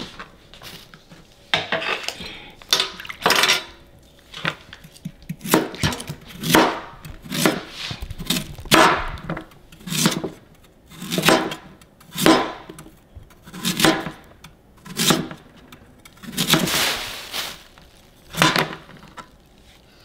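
Cleaver chopping peeled sweet potatoes into slices on a plastic cutting board: a slow, uneven series of sharp chops, roughly one a second, each stroke cutting through and striking the board. The chopping starts about a second and a half in.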